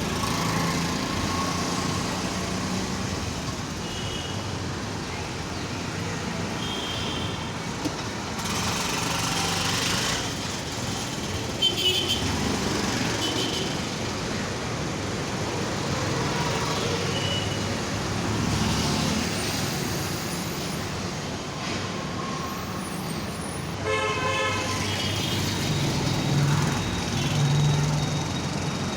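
Busy road traffic running steadily, with vehicles passing and several short horn toots. A longer, fuller horn blast sounds near the end.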